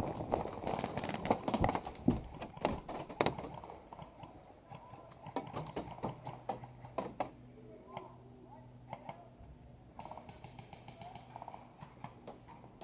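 Running footsteps with clattering gear, a quick irregular string of knocks that slows and fades after about three or four seconds. Then faint, distant voices.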